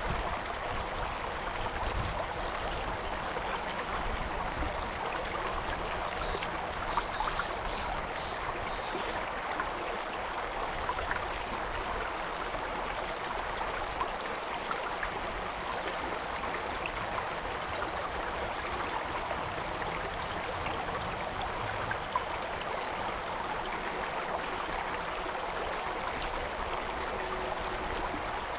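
Stream water flowing and babbling over rocks as a steady, even rush, with a few brief clicks of splashing.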